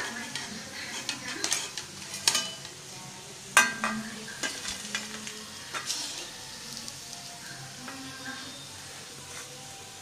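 Besan pakodas sizzling in hot oil in a wok while a perforated steel ladle scoops them out, clinking and scraping against the pan and a steel plate; several sharp clinks, the loudest about three and a half seconds in.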